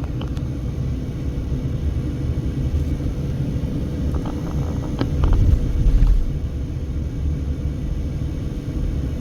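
Road and engine noise heard inside a moving car: a steady low rumble that swells for about a second some five seconds in, with a few faint clicks just before.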